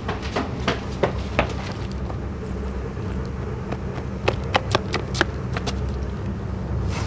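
Running footsteps on concrete: quick, irregular shoe strikes in two spells, one near the start and another just past four seconds in, over a steady low hum.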